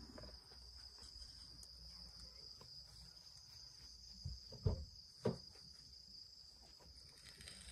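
Crickets chirring in one steady, high, continuous tone, with a few soft knocks around the middle.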